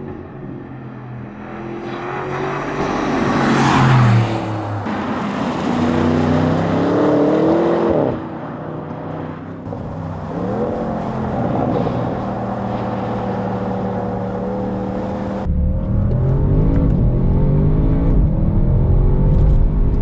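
Audi RS 6 Avant's twin-turbocharged 4.0 V8 accelerating hard and passing by, its pitch climbing and dropping through several gear changes. About two-thirds of the way through the sound becomes deeper and louder as another full-throttle pull is heard from inside the car.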